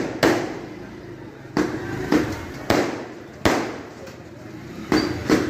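Aerial fireworks bursting overhead: about seven sharp bangs at uneven intervals, each trailing off.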